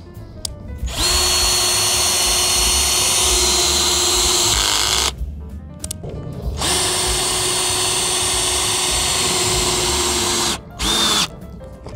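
Cordless drill driving lag bolts through micro flashing into the roof. The motor whines steadily in two long runs of about four seconds each, then gives a short burst near the end.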